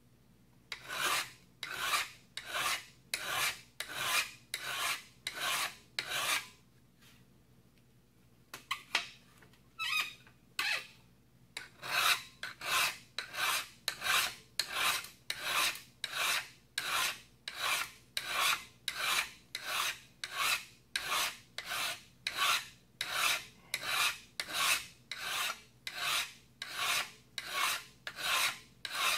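Flat hand file rasping along the edge of a carbon-steel card scraper blank held in a vise, squaring the edge to 90 degrees. Steady strokes come about two a second, with a break of a couple of seconds about a quarter of the way in and a few uneven strokes before the rhythm resumes.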